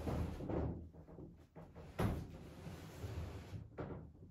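Dull thumps with a sharp knock about two seconds in and a shorter knock near the end.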